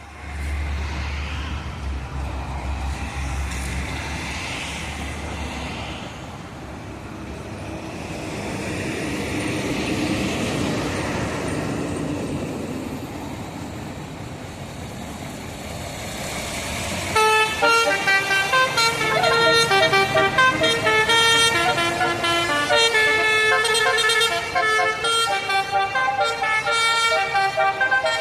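Road traffic passing, with a low hum for the first few seconds and a vehicle swelling past around the middle; then, about two thirds of the way in, a tour bus's telolet horn starts playing a fast multi-note tune and keeps going.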